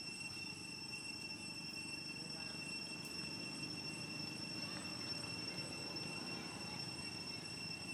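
Steady high-pitched insect drone, one unbroken tone with overtones, over a low outdoor background rumble.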